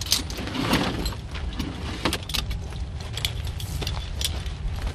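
Metal hardware on climbing harnesses (carabiners, buckles and fall-arrest devices) clinking and jangling as the gear is lifted and handled, a string of short irregular clicks.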